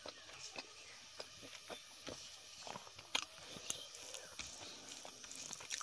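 Close-miked eating sounds: fingers mixing and pressing rice and mashed food on a banana leaf, with chewing and many small scattered clicks and smacks.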